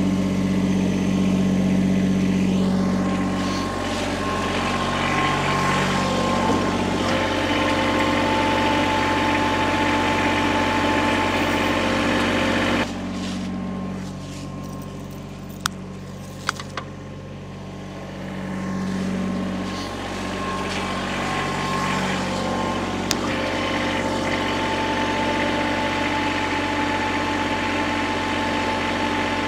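A vehicle engine running at idle, its pitch rising and falling several times. The level drops suddenly about 13 s in, and a few sharp clicks follow a few seconds later.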